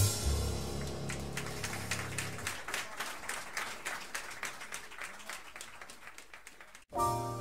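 The quartet's last chord dies away as a small club audience applauds; the applause fades, cuts off abruptly near the end, and piano notes begin the next tune.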